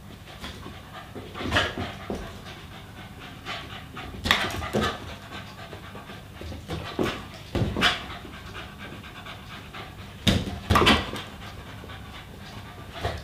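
Small dog panting hard, tired out from play, with several sharp knocks at irregular intervals, some in quick pairs, as it jumps and bats at a balloon.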